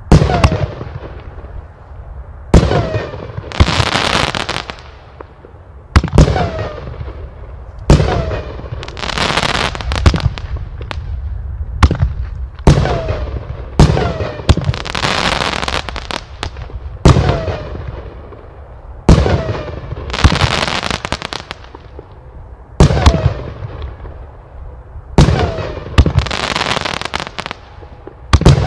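A 16-shot consumer fireworks cake firing shot after shot, about one every two seconds. Each shot is a sharp bang, and most are followed by a second or two of dense crackling from crackling-flower stars bursting overhead.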